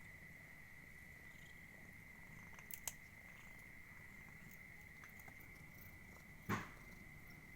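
Calico cat purring faintly over a steady high-pitched whine, with a couple of soft clicks near three seconds in and one sharp knock a little after six seconds.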